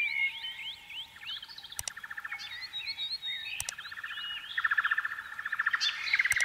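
Birds chirping with quick swooping calls, joined by bouts of fast, evenly pulsed trilling that last a second or more. A few sharp clicks stand out, about two seconds in, nearly four seconds in and at the end.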